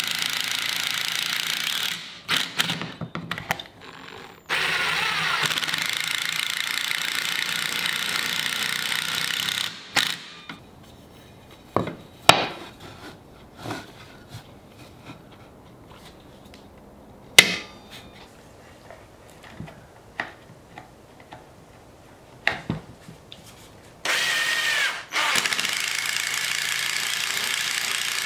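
Electric drill driving pocket screws into a cherry and maple frame, the motor running in three spells: about two seconds at the start, about five seconds, and about four seconds near the end. In the quieter gap between them come sharp knocks and taps of wood and clamps being set.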